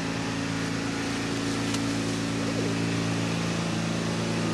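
Steady machine hum with several low droning tones, running evenly without change.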